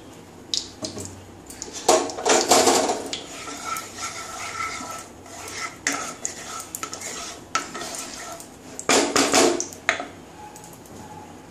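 Wooden spatula scraping and knocking against a nonstick kadai while spreading hot oil around the pan, in several bouts, the loudest a few seconds in and again near the end.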